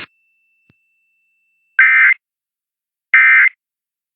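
Emergency Alert System end-of-message signal: short, buzzy SAME digital data bursts. Two of them sound, each under half a second, a little over a second apart, starting about two seconds in.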